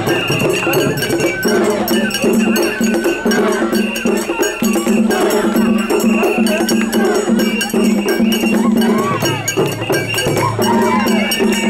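Japanese festival hayashi music: rapid metallic strikes of a small hand gong (atarigane) over held tones that break off and return, with crowd noise.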